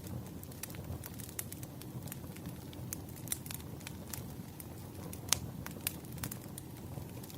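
Burning firewood crackling, with frequent irregular pops and snaps over a low steady rumble of the flames; one louder pop about two-thirds of the way through.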